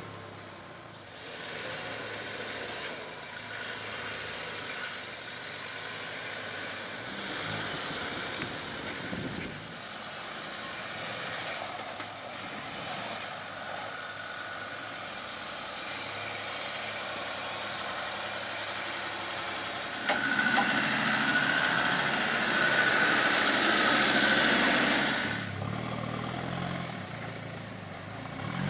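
Four-wheel-drive engines running under load as a Nissan Patrol and a Land Rover Discovery 3 crawl through deep ruts on a dirt track. A much louder stretch of about five seconds comes near the end.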